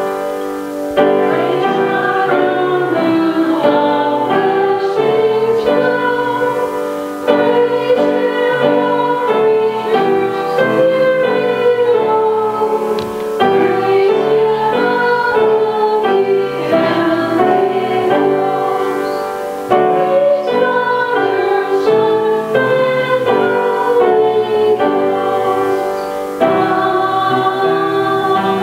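Piano accompanying a woman singing a slow song, with long held notes.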